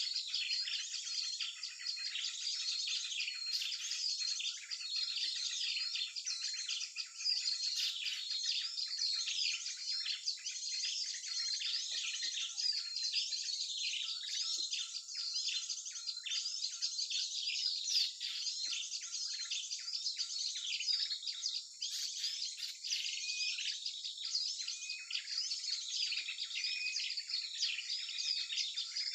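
Dense mixed chorus of many small songbirds chirping, trilling and calling over one another without pause, as on a small-bird lure recording used for bird trapping.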